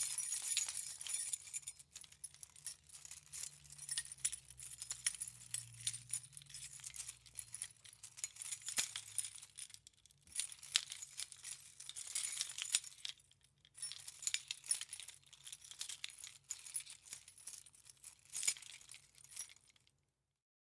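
A key chain with many keys jingling: bright metallic clinks of keys shaken and knocking together in bursts, with short pauses between them, stopping abruptly near the end.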